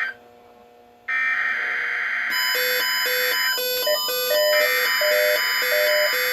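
Emergency Alert System weekly-test signal on a weather radio broadcast: harsh buzzing data-burst screeches that break off for about a second near the start, then resume. About two seconds in, a steady alarm tone and a repeating two-note beeping join them.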